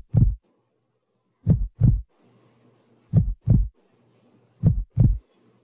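Heartbeat sound effect: four lub-dub double thumps, low and dull, about a second and a half apart, with a faint steady hum between the beats.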